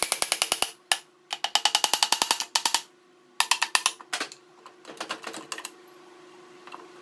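A hammer tapping in quick runs of light taps, about seven or eight a second, on the oil pan of a Briggs & Stratton twin-cylinder engine to knock it loose from the crankcase. The tapping comes in bursts that stop and start, ending in a few scattered taps about halfway through.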